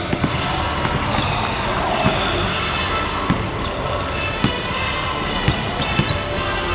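Basketballs bouncing on a hardwood court, several balls at once, giving short thuds at irregular moments over a steady background hum of the hall.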